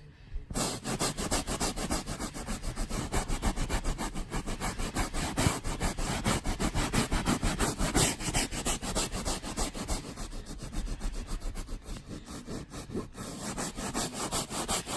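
Stiff cleaning brush scrubbing chair upholstery hard in fast back-and-forth strokes, several a second, working cleaner into white stains.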